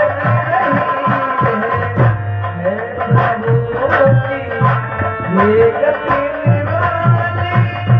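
Instrumental interlude of North Indian folk music: a hand drum plays a steady pattern of repeated strokes under a melody line of held notes with slides between them.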